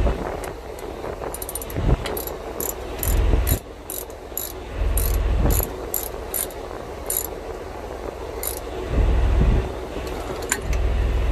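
Ratchet wrench clicking through a run of short strokes, about two to three a second, tightening the bolt that sets the tension on a reefer unit's loose alternator belt.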